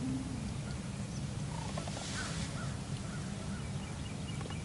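Steady low outdoor rumble with faint, scattered bird calls, a few short ones in the second half.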